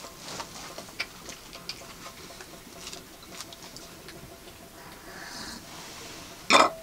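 Faint scattered clicks and taps of people eating by hand, with bread, a bowl and a drink can being handled, and a soft sip from the can about five seconds in. A short, loud sound near the end is the loudest thing heard.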